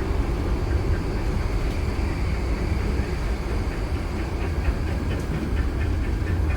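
Disneyland Railroad passenger car riding along the track: a steady low rumble of the train in motion. A faint, rapid light ticking comes in near the end.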